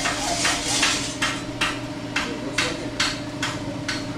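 A hand tool used in a steady rhythm on building work, about two short strokes a second, with a steady low hum underneath.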